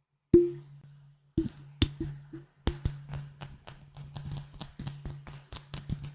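Rapid tapping on a glass bottle, each tap giving a short ringing note. One sharp tap, a pause of about a second, then a quick, uneven run of taps.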